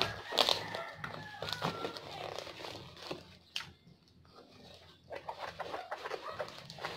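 Scissors snipping through packing tape and a plastic courier mailer crinkling as it is cut open, in irregular sharp snaps and rustles, loudest about half a second in.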